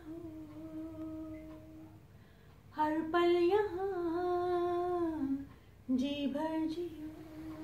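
A woman singing unaccompanied, slow and drawn out: long held notes with slow bends in pitch, in three phrases with short breaks between them. The middle phrase is the loudest.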